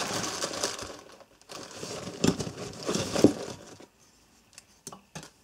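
Plastic bag crinkling and rustling as a hand rummages in it, with a couple of light knocks a little over two and three seconds in. The last second and a half is almost quiet apart from a few small clicks.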